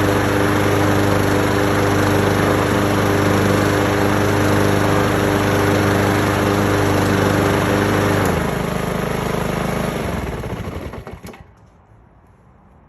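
Honda HRX217 lawn mower engine running steadily, then shut off about eight seconds in and running down over two or three seconds until it stops.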